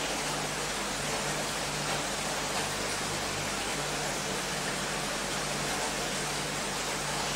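Steady, even hiss with a faint low hum underneath, unchanging throughout; no distinct events.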